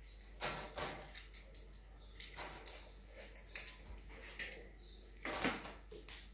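Scattered light knocks and rustles from things being handled in a kitchen, a few short sounds a second apart, the loudest about five seconds in.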